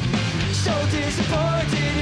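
Rock song: a male singer over electric guitar and drums.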